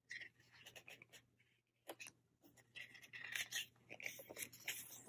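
Faint rustling and soft taps of glossy photo-book pages being handled, with a page being turned in the second half.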